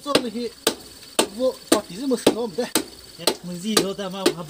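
Machete chopping into a bamboo pole in steady strokes, about two a second, with crickets chirring steadily underneath.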